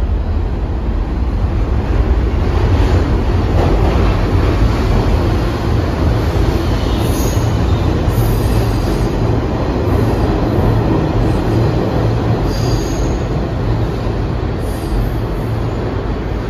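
New York City Subway R62 train running along the track, a loud steady rumble of wheels on rail, with short high wheel squeals a few times.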